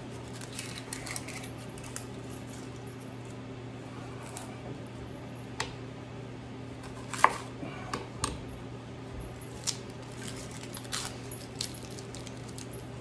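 Sparse knife taps and clicks on a cutting board as an onion is peeled and trimmed with a chef's knife, the loudest about seven seconds in, over a steady low hum.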